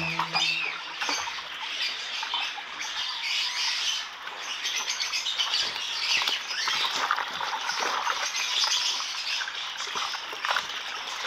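Water splashing and catfish thrashing as a seine net is hauled through a shallow tank and the catch is tipped into a plastic tub: a busy run of irregular slaps and splashes.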